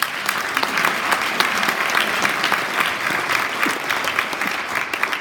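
An audience in a hall applauding steadily after a coach is introduced, starting abruptly and dying away just after the end.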